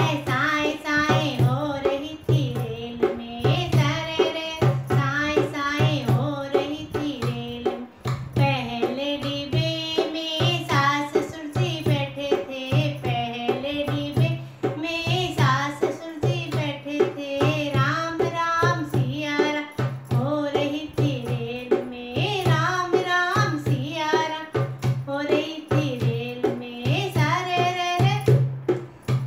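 A woman singing a Hindi wedding folk song (banna-banni geet) while playing a dholak, its low strokes keeping a steady beat under the melody.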